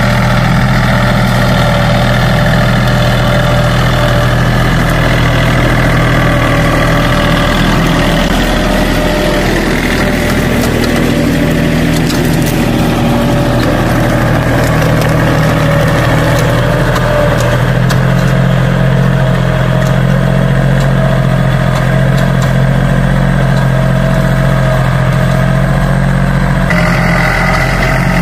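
Compact farm tractor's diesel engine running steadily under load as it pulls a disc plough through soil. The sound changes abruptly near the end.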